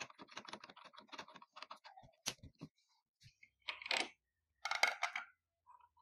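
Rapid small metallic clicks as a threaded aluminium extension shaft is spun onto an angle grinder's spindle, then a sharp click and two short scraping rattles as a flange and cutting disc are fitted onto the shaft.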